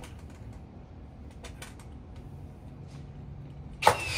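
A framing nailer fires once near the end, a single sharp crack with a brief ringing, driving a nail into a wooden roof truss. Before it there is a low steady hum and a few faint ticks.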